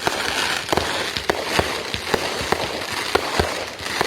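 Consumer fireworks going off: a dense crackling hiss with a rapid string of sharp bangs, about three a second.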